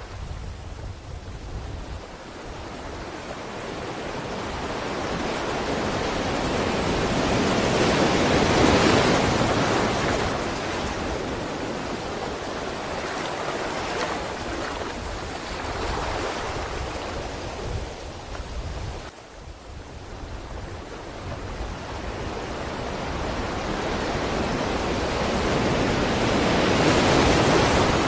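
Ocean surf: waves swelling and breaking in long surges, loudest about a third of the way in and again near the end, with a short lull just past the middle.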